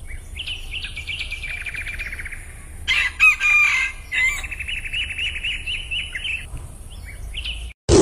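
Rooster crowing once, a short loud crow about three seconds in. Rapid high-pitched trills run before and after it.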